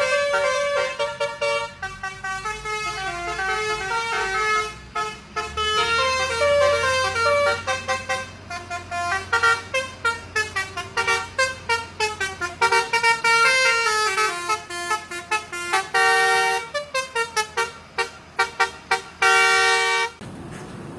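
Telolet multi-tone horn on an Armada Jaya Perkasa bus playing a melody of stepping notes, then a run of rapid short blasts near the end before cutting off sharply. The bus's engine runs low underneath for part of it.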